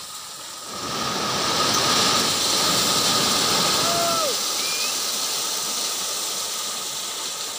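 Crushed stone pouring in a rush off the raised bed of a Hino dump truck. The rush swells about a second in and slowly eases off, with a faint steady whine underneath.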